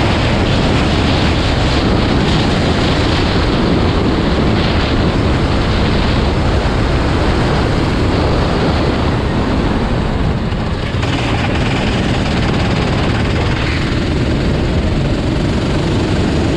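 Racing vehicles' engines running together in a dense, steady rumble, with no single engine standing out.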